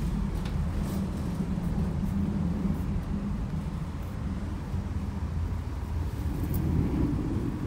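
Steady low rumble of a passenger train on the move.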